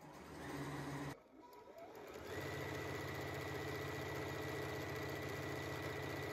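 Juki sewing machine stitching fabric: a short run of about a second, a pause, then a longer steady run at an even rapid stitch rate.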